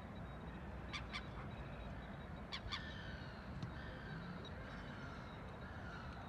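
Gulls calling in flight: short harsh calls, a pair about a second in and another about two and a half seconds in, then a few fainter ones, over a steady low background rumble.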